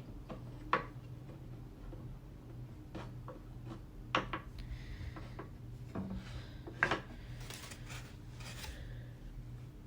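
Small wooden toy animal figures being handled and set down on a table: a few scattered light knocks, the sharpest about 4 and 7 seconds in, with soft rubbing and rustling between.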